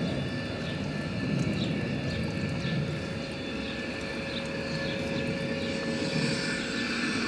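LGB G-scale model of the Rhaetian Railway Ge 6/6 I 'Krokodil' electric locomotive running slowly. Its ESU LokSound XL V4.1 sound decoder plays electric-locomotive running sound through the model's speaker: a steady hum with a sustained tone that grows stronger partway through, and regular light ticks about twice a second.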